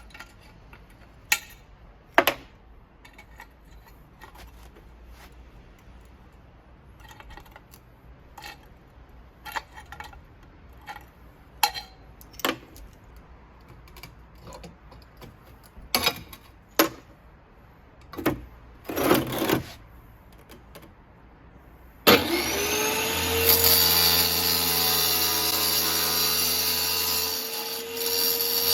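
Scattered sharp knocks and clicks. Then, about 22 seconds in, a power tool's motor starts suddenly, spins up and runs steadily with a loud hiss, as when cutting tile.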